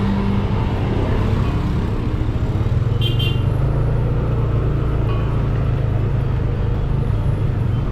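Street traffic: motor vehicles running past with a steady low drone, and a brief high-pitched sound about three seconds in.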